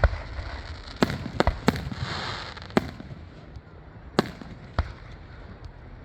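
Fireworks bursting overhead: about seven sharp bangs at uneven intervals, with a crackling shimmer about two seconds in.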